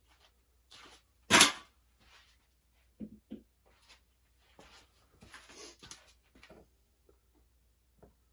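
Sporadic kitchen handling noises: one loud brief burst about a second in, then two soft low knocks and a stretch of light rustling and clicks.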